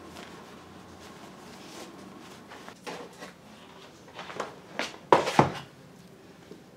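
Packages being set down on a kitchen counter: scattered soft knocks and rustles, loudest a sharp double clunk about five seconds in, when a cardboard carton of eggs is put down.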